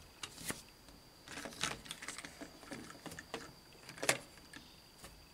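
Hard plastic toy motorcycles handled by hand, making scattered light clicks and knocks as they are touched and moved. The sharpest click comes about four seconds in.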